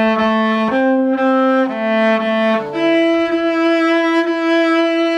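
A cello bowed slowly and evenly, playing a simple melody: A, then C, back to A, then a higher E held the longest. The notes are played in the cello's fourth position, across the D and A strings.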